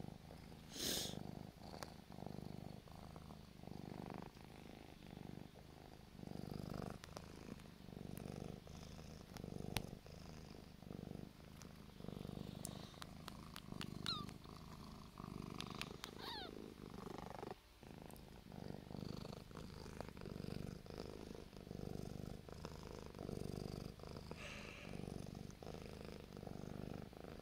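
A domestic cat purring close up while being scratched under the chin. The purr swells and fades about once every second or so, with each breath in and out.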